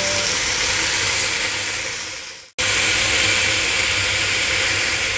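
Chicken wings and potato chunks sizzling in hot oil in a nonstick pot: a steady frying hiss. It fades out and cuts off about two and a half seconds in, then starts again at full level.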